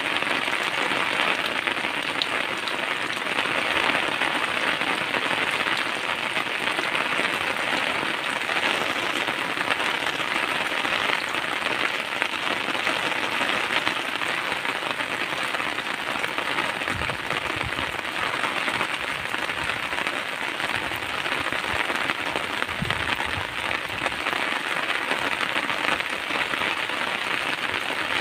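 Heavy rain falling steadily on wet paved ground: a dense, even hiss of splashing drops.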